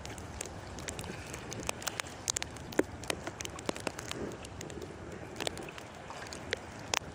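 Lake water sloshing and splashing close to the microphone as people wade through it chest-deep, with irregular sharp splashes and wind on the microphone.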